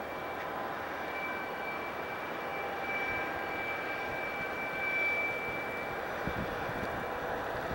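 Several diesel locomotives hauling a long train, heard at a distance: a steady engine drone with a high, held whine running over it.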